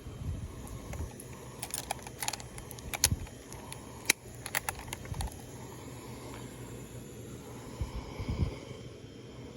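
A run of sharp clicks and light knocks from handling a freshly caught bass and a fish scale, about two to five seconds in, over a steady low rumble, with a few low thumps.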